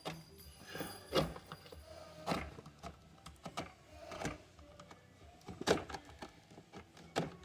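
Hands working parts and wiring in a Jeep Wrangler's speaker headbar: scattered clicks, knocks and rustles at an uneven pace, the loudest about a second in and near six seconds.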